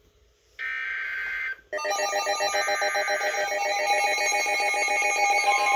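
Emergency Alert System broadcast: the last one-second screech of the digital SAME header data burst, then a short gap, then the two-tone EAS attention signal starting about 1.7 seconds in and continuing as a harsh, rapidly pulsing tone, the start of a new warning.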